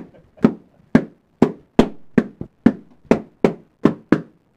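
Inflated rubber party balloons being knocked about and pushed into a cardboard box: a quick run of about eleven sharp taps, two to three a second.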